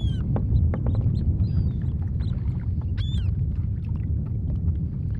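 Gulls calling while they dive over feeding fish: sharp cries that fall in pitch, the clearest right at the start and again about three seconds in, with shorter calls between. A steady low rumble runs underneath.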